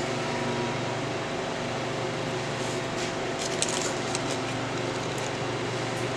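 Steady mechanical hum, like a shop fan, with a few faint light clicks about three to four seconds in as a thin bearing shell is pressed into a billet connecting rod cap.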